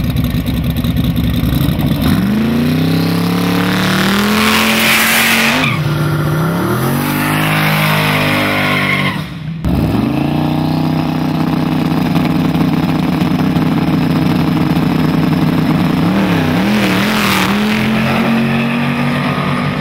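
Two Pontiac V8 drag cars, a Firebird and a GTO, revving at the starting line. They are then held at a steady high rev while staged, and launch near the end with a brief screech of tires.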